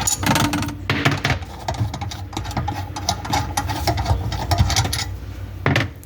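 Screws being backed out of a garbage disposal mounting plate under a sink, giving a run of rapid, irregular mechanical clicks and rattles.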